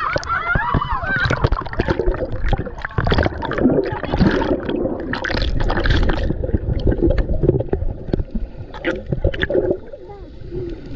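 Seawater splashing and sloshing around swimmers at the surface. About six seconds in the sound turns muffled and dull as it is heard from underwater, with bubbling and gurgling.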